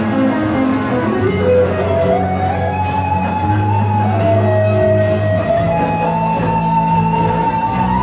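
A live band playing an instrumental passage: electric and acoustic guitars over a steady beat on an electronic drum kit, with a lead line of long held notes that slide from one pitch to the next.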